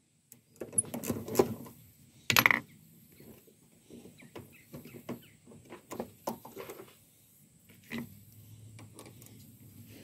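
Clicks and knocks of a socket ratchet loosening the side-post battery terminal bolt to disconnect the battery cable, with scattered clatter from the tool and cable being handled. One louder clack comes about two and a half seconds in.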